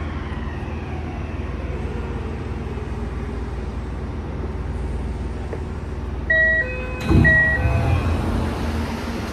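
Toei 6300 series electric train braking to a stop in an underground station: a steady rumble under a faint motor whine that falls slowly in pitch. About six seconds in, a door chime sounds twice, with a low thump as the doors open.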